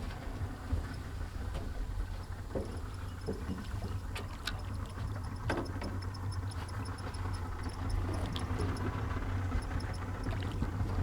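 Boat motor idling with a steady low rumble, with a few scattered knocks and clicks.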